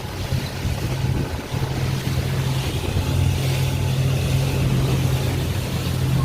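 Motorboat engine running steadily with a low drone, over the rush of wind and water.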